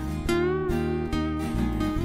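Yamaha acoustic guitar being strummed and picked in a steady rhythm, chords ringing one after another.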